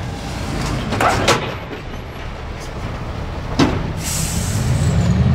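Mercedes Actros truck and trailer manoeuvring at low speed: the diesel engine runs with a steady low rumble that grows louder near the end. Sharp clanks sound about a second in and again after three and a half seconds, followed by a short high hiss.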